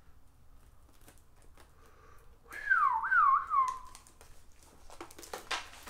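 A person whistling a short phrase, about a second long, a little over halfway through: the pitch drops, wavers up and down twice, then settles. A few light clicks and taps of a cardboard box being opened follow near the end.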